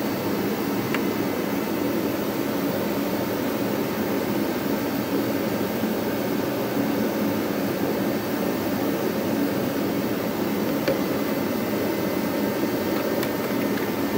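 Steady rushing noise of a small electric blower-type motor, running evenly without change.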